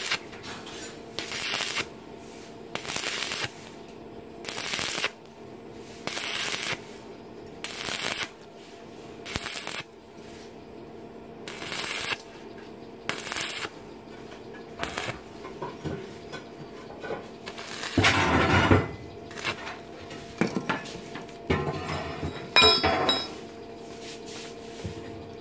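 Stick (arc) welding on thin square steel tube: the arc crackles in short bursts about every second and a half, struck and broken again and again to keep the heat down on the thin wall. Two longer, louder bursts come later, over a steady hum.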